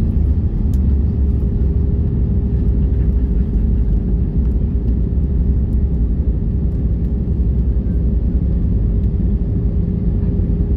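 Airbus A320 cabin noise as the airliner rolls on the ground after landing: a steady low rumble from the engines and wheels, with a constant hum over it.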